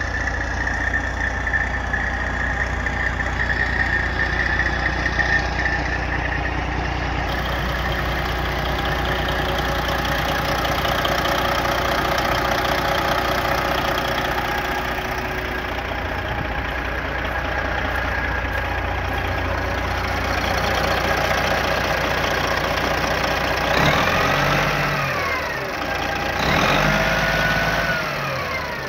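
1989 White truck's turbocharged diesel engine idling steadily, then revved twice near the end, the pitch rising and falling each time.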